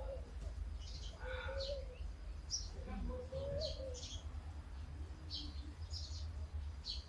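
Small birds chirping, short high calls repeated every half second or so, over a steady low rumble.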